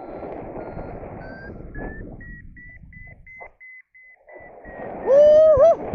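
Paragliding variometer beeping about twice a second, its pitch rising slowly as it signals lift, over wind buffeting the microphone. Near the end a short loud vocal cry.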